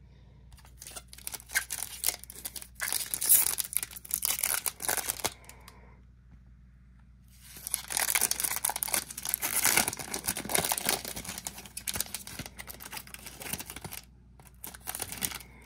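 Foil wrapper of a Topps baseball card pack being torn open and crinkled by hand, in two long spells of crackling with a short pause about six seconds in.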